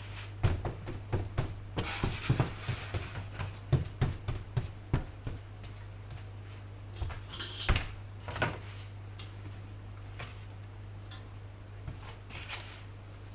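Quick, irregular taps and knocks of patongko dough being cut and pressed into shape on a work board. The taps come thick at first, then only a few scattered knocks, over a steady low hum.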